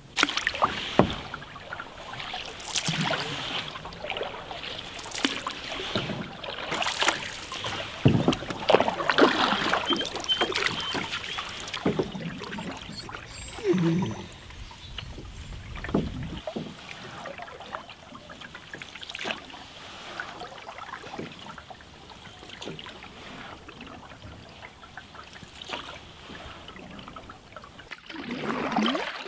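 Canoe being paddled: paddle blades dipping and pulling through the water in irregular splashes, with water moving along the hull.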